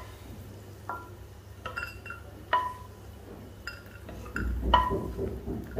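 A small stainless steel bowl clinking as ghee-fried cashews are scooped into it from a kadai with a wooden spatula: a string of about eight light, irregular clinks, each ringing briefly.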